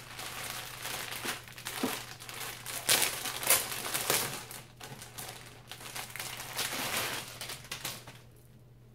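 Packaging crinkling and rustling as a set of tea towels is unwrapped, with sharper crackles around the middle, stopping about eight seconds in.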